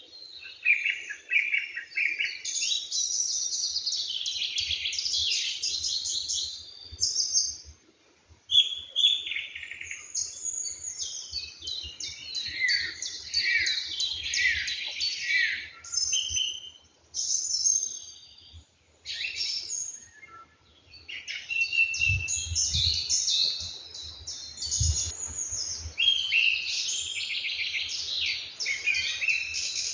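Several songbirds singing at once in a morning chorus, overlapping fast chirps, trills and whistles, with brief lulls about eight and nineteen seconds in.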